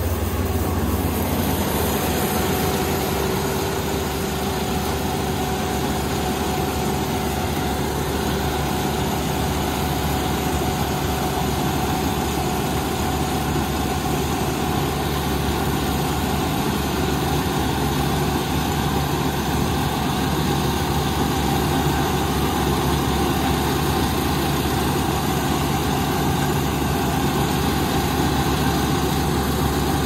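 Kubota Dynamax Revo ER470 combine harvester running steadily while it cuts and threshes rice: a continuous diesel engine and machinery drone with a few steady tones through it.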